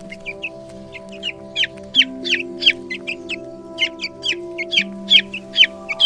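Young chicks peeping: a rapid run of short, high, falling peeps, about three a second, over background music with long held notes.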